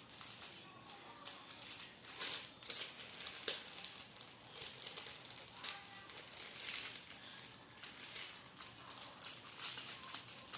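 Plastic packaging crinkling and rustling as it is handled and opened, in irregular crackles with a sharper snap a few seconds in.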